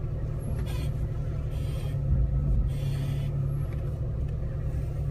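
Vehicle engine running at a steady low idle, with a few brief hissing rushes over it.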